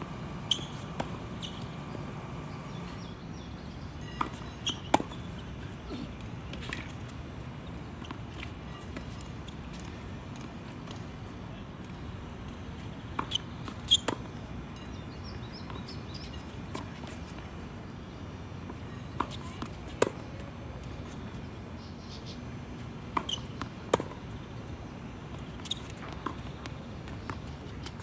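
Tennis balls struck by rackets and bouncing during rallies: sharp pops at irregular intervals, several in pairs well under a second apart, over steady background noise.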